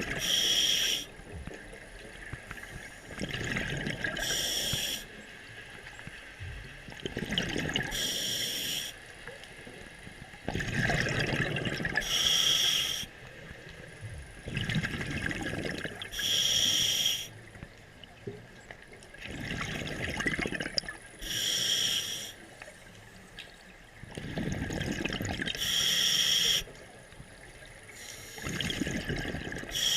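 Scuba diver breathing through a regulator underwater, about one breath every four seconds: a short hiss from the demand valve on each inhale, then a longer burble of exhaled bubbles.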